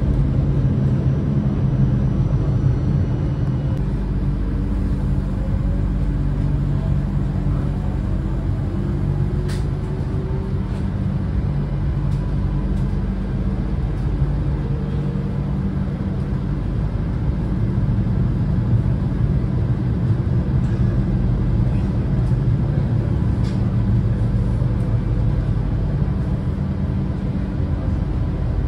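Alicante Tram light-rail car on the move, heard from inside: a steady low rumble and hum, with a faint motor whine rising in pitch a few times in the first half.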